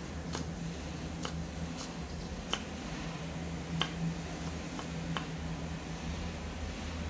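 Chef's knife dicing carrot on a wooden cutting board: sharp knocks of the blade striking the board, about seven at uneven intervals, over a steady low hum.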